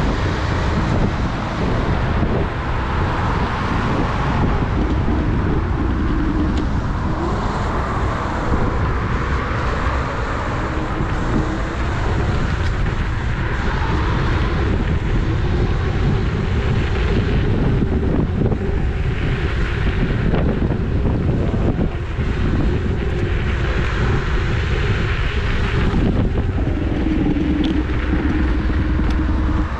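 Steady wind rush on the microphone with tyre and road noise from a Dualtron electric scooter being ridden.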